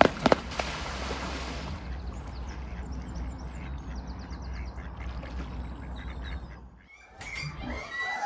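A mute swan's feet slapping the water in quick regular strokes as it runs across the surface, ending in a splash as it settles. Then soft waterfowl calls over a steady low wind rumble, and near the end a few short high squeaks.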